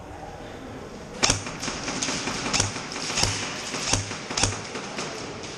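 A string of sharp knocks and clicks from an airsoft player moving with his gear, starting about a second in and then coming roughly every two-thirds of a second, several with a dull low thump.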